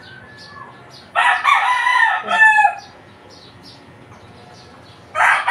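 A rooster crowing twice: one long crow about a second in, and a second crow starting near the end.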